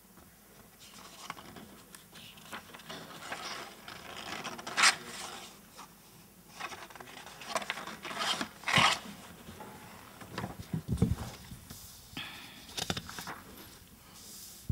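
Paper pages of a book being leafed through and turned, in a series of short rustles, the loudest about five seconds in and around eight to nine seconds in. A few low thumps follow near the end.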